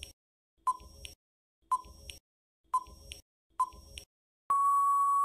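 Quiz countdown timer sound effect: five short ticking blips about one second apart, then a steady beep lasting about a second near the end as the time runs out.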